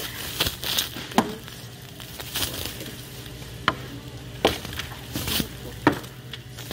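Plastic bag rustling and crinkling as it is handled, with scattered sharp clicks and knocks over a steady low hum.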